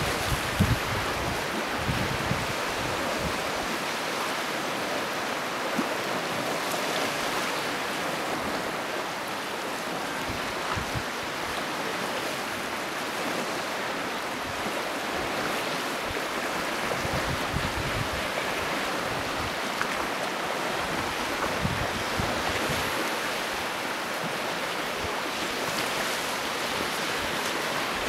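Steady wash of waves on a sea shore, with wind now and then buffeting the microphone in low rumbling gusts.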